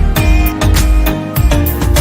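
Background music with a steady beat: regular drum hits over bass and sustained instrumental notes.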